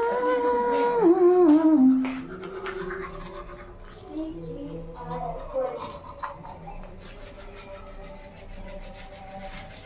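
Manual toothbrush scrubbing teeth in quick rubbing, rasping strokes. A melodic tune of held, stepping notes is loud over it for the first two seconds, then carries on faintly beneath the brushing.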